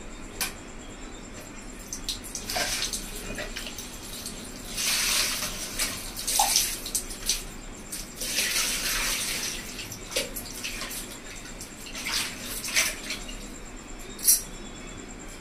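Water pouring and splashing in spells of a second or two, with short sharp clicks in between.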